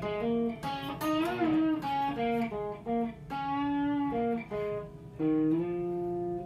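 Electric guitar playing a blues lead fill between sung lines: single picked notes one after another, with a bent, wavering note about a second in and a long held note near the end.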